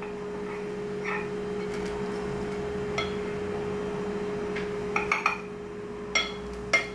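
Knife blade clinking against the bottom of a glass baking dish while a soft baked pie is cut. There are a few sharp clinks, most of them in the second half, over a steady low hum.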